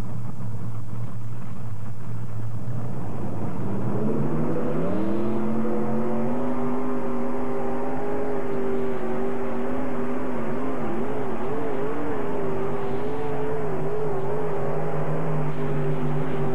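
Multi-engine modified pulling tractor running five 454 Chevrolet big-block V8s, steady at first, then revving up in a rising glide about four seconds in as the pull starts. It holds at high revs, with the pitch wavering briefly midway.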